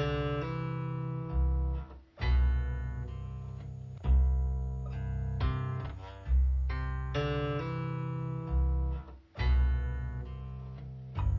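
Background music: plucked acoustic guitar over low bass notes, each note struck and then fading. It breaks off briefly about two seconds in and again near the end.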